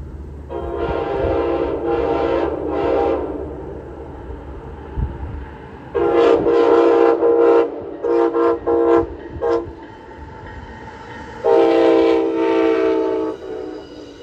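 Amtrak train's Nathan K5LA five-chime air horn sounding a chord in a pattern: a long blast about half a second in, another long blast about six seconds in followed by about four quick short toots, and a final long blast near the end.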